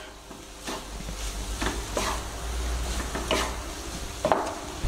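Maggi noodles with egg and vegetables sizzling in a non-stick frying pan while being stirred and tossed with wooden spatulas, the spatulas scraping and knocking against the pan about seven times, over a low steady hum.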